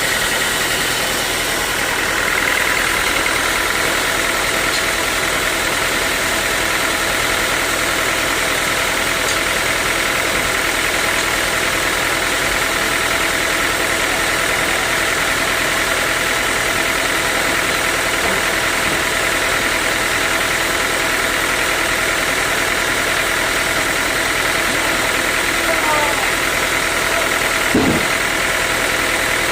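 Sawmill machinery running steadily: a loud, even mechanical drone with a constant high whine. A single knock comes near the end.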